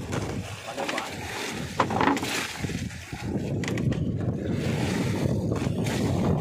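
Wind buffeting the microphone: a steady, unpitched low rumble that fills in from about three seconds in, with a few short knocks and clatters of handling before it.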